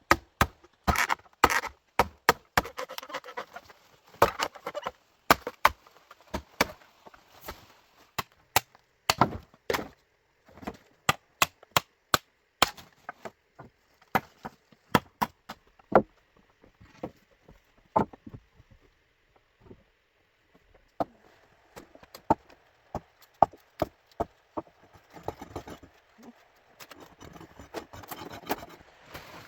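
Bamboo being chopped with a blade: irregular sharp blows, about one or two a second at first, coming more sparsely in the second half.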